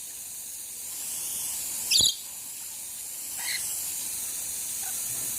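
Steady hiss of a water shower spraying, with a pet lorikeet giving one short, sharp squawk about two seconds in and a fainter call a little later.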